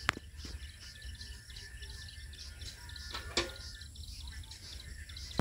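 Faint birds and insects chirping over a low steady rumble, with two sharp clicks: one at the very start and one a little past the middle.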